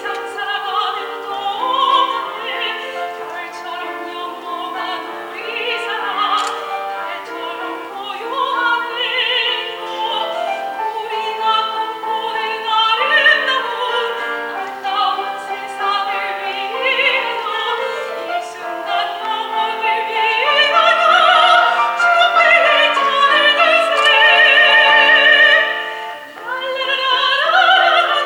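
Classically trained soprano singing a Korean art song with piano accompaniment, her voice in vibrato. Her line climbs to long, loud high notes about two-thirds of the way through, then eases off briefly near the end.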